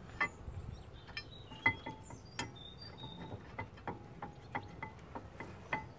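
Light, irregular metallic clicks and taps, some with a brief ringing, from the steel bolt and brake caliper carrier as the bolt is started into its thread by hand.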